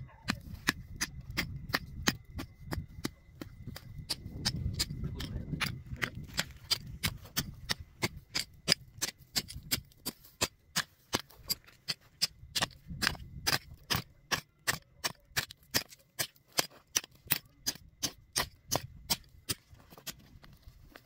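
Short-handled hoe chopping into dry, hard dirt in quick repeated strikes, about two to three a second.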